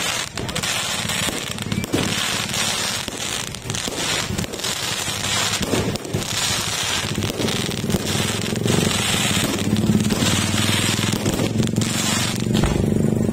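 Aerial fireworks bursting in rapid succession, with a dense continuous crackle from the glittering crackling stars. A low steady hum joins about halfway through and grows louder near the end.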